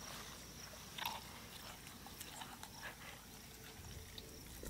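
Faint wet squishing and scraping of fingers scooping crushed ginger-garlic paste out of a stone mortar into a steel bowl, with a few soft clicks, the clearest about a second in.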